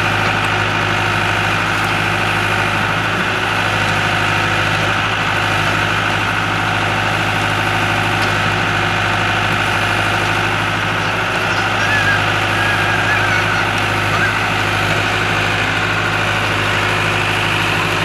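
Diesel engine of an Escorts Powertrac 4455 tractor carrying a loader backhoe, running steadily at an even speed with a constant low hum.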